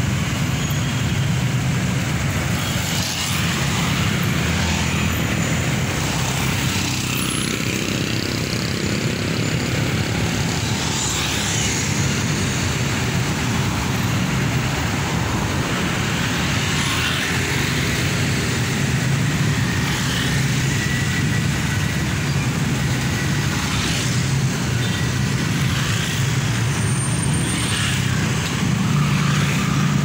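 Steady street traffic at close range: the engines of a medium bus, motorcycles and cars running as they move slowly past, over continuous tyre and road noise.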